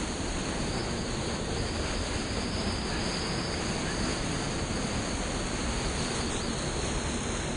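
Whitewater rapid in a rocky gorge: fast water pouring over rock ledges, a loud, steady rushing noise with no let-up.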